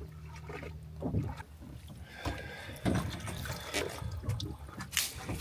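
Small fishing boat at rest on the water: a steady low hum under scattered soft knocks and water sounds, with one short sharp splash or squirt about five seconds in.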